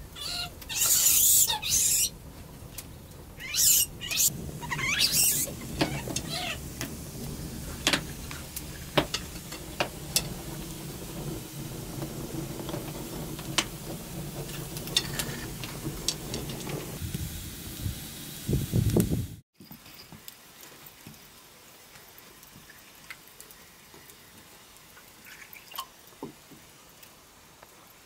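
A few loud bursts in the first five seconds, then a wood fire burning on a clay hearth: a steady low rush with scattered sharp crackles and pops. About two-thirds through, the sound drops suddenly to a quiet room with only the odd faint click.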